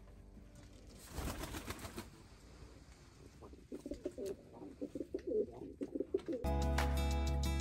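Domestic pigeons cooing: a run of short, low, pulsing coos repeated in quick succession, after a brief rustle about a second in. Guitar music cuts in near the end.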